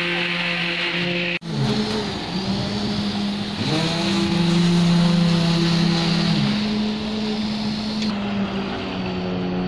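Concrete truck's diesel engine running steadily, its pitch rising about four seconds in and holding for a couple of seconds before settling back, with a brief cut-out about a second and a half in.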